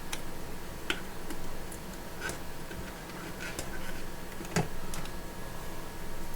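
Scattered, irregular light clicks and taps of small plastic and metal parts being handled while a replacement screen is fitted into a resin 3D printer, over a steady faint hum.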